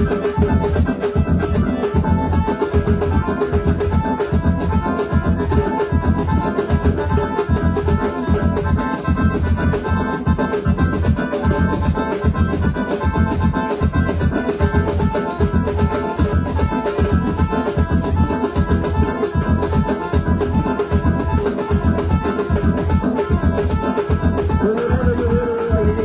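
Band music with an electronic keyboard playing an organ sound over a steady drum beat.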